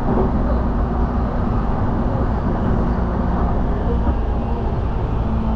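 Cabin noise of a JR Yamanote Line commuter train running along the track: a steady low rumble from the wheels and running gear, with a faint steady hum.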